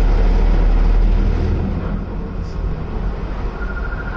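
Steady low rumble of a Hakone pirate-ship sightseeing cruise boat under way, with a rushing noise over it that eases a little about a second and a half in. A thin, steady high tone starts near the end.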